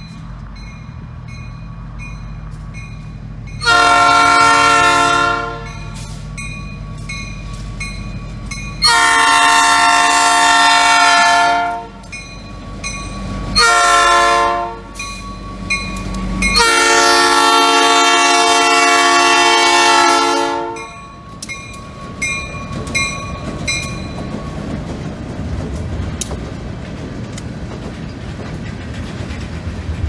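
Diesel locomotive horn blowing the grade-crossing signal, long, long, short, long, over the low rumble of the engine and a ringing crossing bell. After the last blast the locomotive passes and the tank cars roll by with a steady rumble and wheel clicks.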